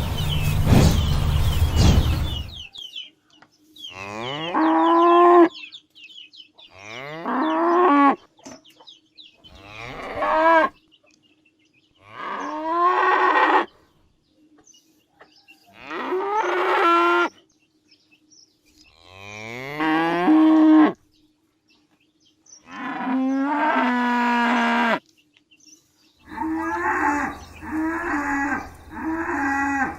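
A cow mooing: seven long moos, each rising in pitch at its start, every three to four seconds, then a quicker run of shorter moos near the end. The first couple of seconds hold a loud rushing noise before the mooing begins.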